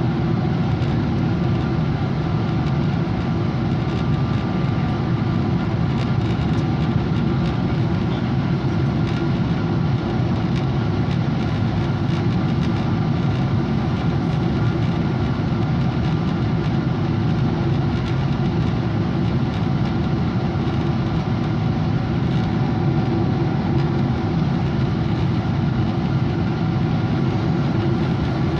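Steady low rumble and hum of a Boeing 777-200 airliner's engines, holding an even level with no build-up.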